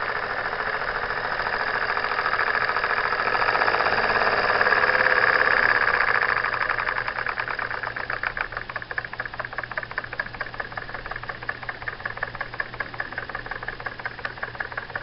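Jensen #55 toy live steam engine running fast and belt-driving a small novelty coffee grinder, a rapid rattling beat. About six seconds in it quietens and slows, so its strokes can be heard one by one.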